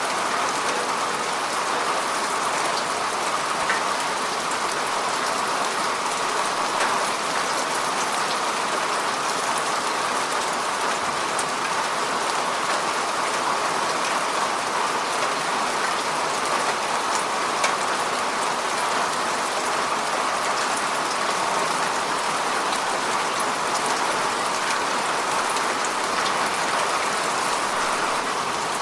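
Steady rain falling on the surface of a lake, an even hiss of countless small drop splashes with no let-up.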